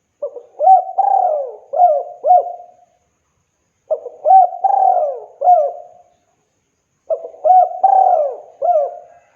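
Spotted dove (tekukur) cooing: the same phrase of several short coos with one longer drawn-out coo in the middle, sung three times in a row with a short pause between.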